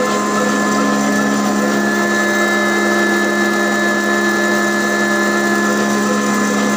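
A belt-driven grinding mill running steadily, turned by flat belts from a slow-speed desi black diesel engine rated 18/20 HP at 300 RPM. It makes an even machine drone with several steady tones.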